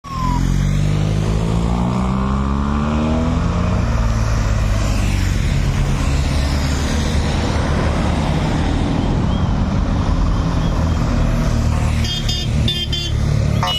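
Cycle-race convoy vehicles, team support cars and police motorcycles, passing close by on the road: steady engine and tyre noise, with engine tones sliding in pitch as one goes by in the first few seconds. Near the end a series of short high-pitched pulses starts.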